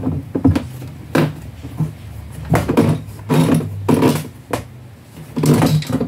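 Repeated knocks and clunks of washing-machine plastic parts being handled and pushed together, as the tub assembly is worked down to snap its tab into place.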